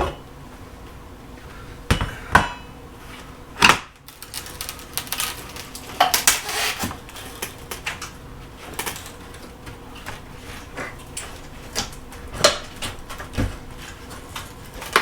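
Wood trim being knocked and pried off a wall: irregular sharp knocks and clanks, with a busier stretch of clatter about six seconds in.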